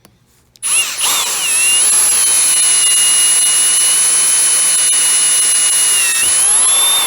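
Electric drill with a 3/16-inch bit drilling out a seal backup ring stuck inside a high-pressure waterjet swivel part. It starts about half a second in with a high, steady whine, the pitch sagging briefly near the end before it stops abruptly.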